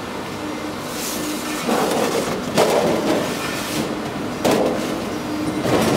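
Several short rattling, rustling bursts as a thin aluminium printing plate is handled at a Screen PTR8100 platesetter, over the machine's steady hum with a faintly pulsing tone.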